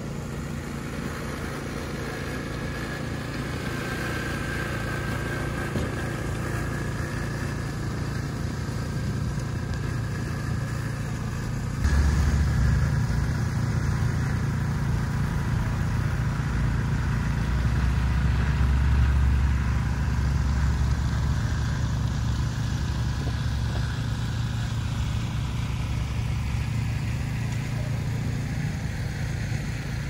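City street traffic: motor vehicles running and passing, with a steady low engine rumble that turns suddenly louder about twelve seconds in.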